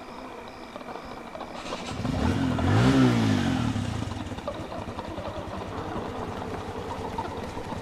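A vehicle engine starting up and revving, rising and then falling in pitch about two to four seconds in, then running on steadily.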